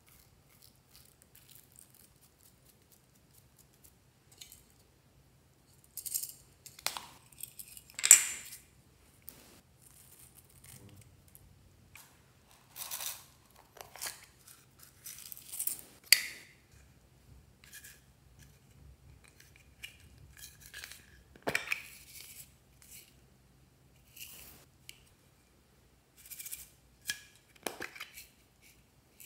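Sprinkles, glitter and sequins being shaken and tipped from small plastic containers onto slime: scattered rattles, clicks and taps with quiet gaps between. Nearly quiet for the first few seconds.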